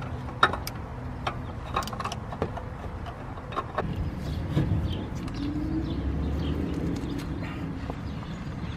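Scattered sharp clicks and clinks of a cap-style oil filter wrench working on a stubborn Toyota Camry oil filter housing. Under them runs a low vehicle rumble that swells around the middle.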